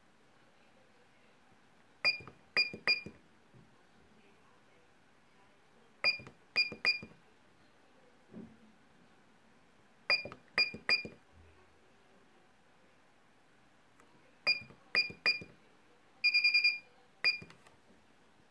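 Buse BS 100 IBIS on-board computer beeping: clusters of three short, high electronic beeps about every four seconds. Near the end come a longer pulsing beep and one last short beep.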